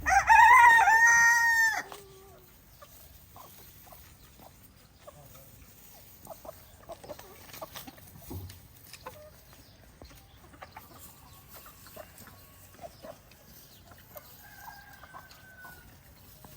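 A rooster crows once, loud, lasting about two seconds at the start. Afterwards chickens cluck softly with scattered short calls.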